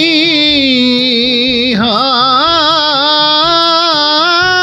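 A recorded song: a singer holds long, wavering notes over a soft beat, swooping down and back up into a new held note about two seconds in.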